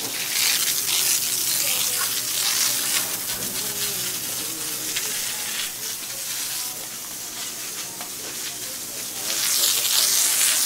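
Water spraying from a hose onto a hard surface: a steady hiss that grows louder near the end.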